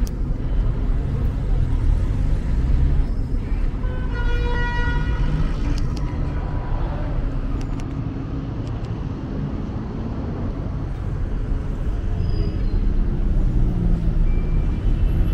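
City street traffic: a steady rumble of car engines and tyres, with a car horn sounding once for about a second and a half, around four seconds in.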